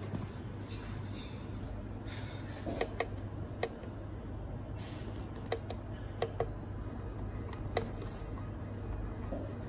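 Small tactile push buttons on a mini spider moving-head light's control panel clicking as they are pressed, about eight sharp clicks, several in quick pairs, over a steady low hum.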